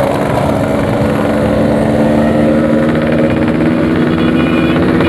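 Yamaha RX-King two-stroke single-cylinder motorcycle engine running steadily while being ridden, its pitch drifting only slightly.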